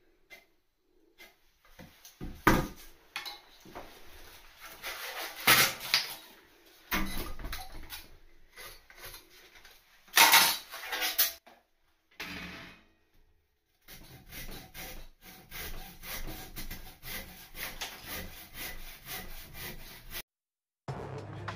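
Timber batten being handled and fitted into an opened-up floor: a few loud wooden knocks and clatters, then a long run of quick, even scraping strokes.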